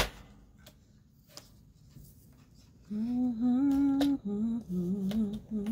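A woman humming a slow tune to herself, holding steady notes that step up and down, starting about three seconds in. A sharp click comes right at the start.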